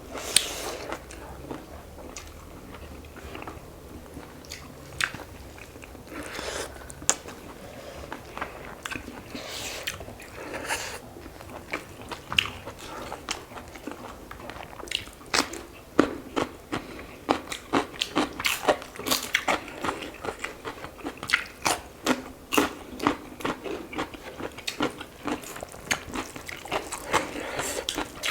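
Close-miked eating: chewing and biting with many short sharp crunches and mouth clicks, scattered at first and coming thick and fast through the second half.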